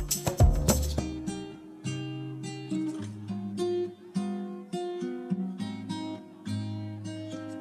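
Background music of an acoustic guitar: dense, loud playing for about the first second, then single picked notes.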